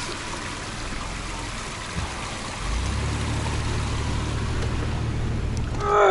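Rushing water of a shallow mountain river as a car fords it, with the engine's low steady hum coming in about three seconds in. Right at the end a cow lows once, a long call falling in pitch.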